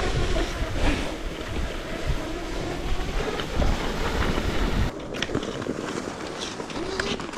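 Wind rushing over the microphone during a fast downhill cross-country ski run. The rushing drops off about five seconds in, leaving a quieter hiss with a few light clicks.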